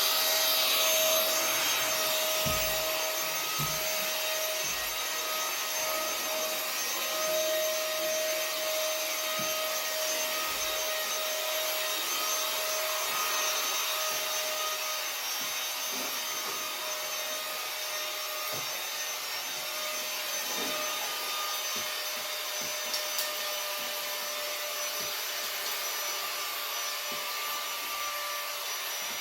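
Vacuum cleaner running steadily with a high hiss and a steady whine, with a few dull knocks in the first several seconds as the nozzle bumps along the floor.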